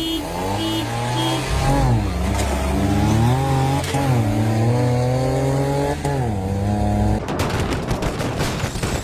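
An engine running and revving, its pitch rising and falling for about seven seconds, then giving way to a couple of seconds of dense, rapid crackling.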